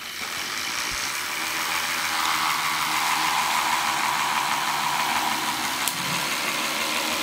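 Homemade Voss electrostatic machine running: the small motor spinning its CD disc, with wire brushes rubbing on the disc, makes a steady whirring hiss that comes up to speed over the first second. A single sharp click about six seconds in.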